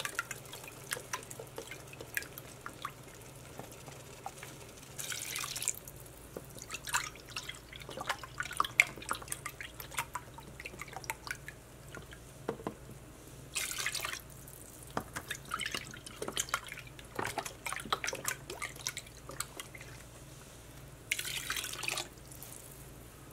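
Chicken stock being poured cup by cup into a pot of diced potatoes and vegetables: liquid splashing and dripping, with three short rushes of pouring about five, fourteen and twenty-one seconds in.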